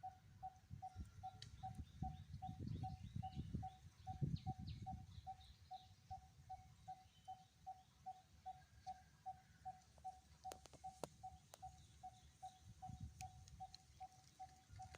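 Faint forest ambience: a steady run of short notes at one pitch, about three a second, with faint bird chirps. Low wind rumble on the microphone swells between about two and five seconds in, and a few sharp clicks come near the middle.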